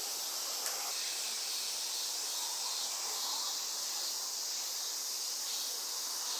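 Steady, high-pitched chorus of insects calling without a break.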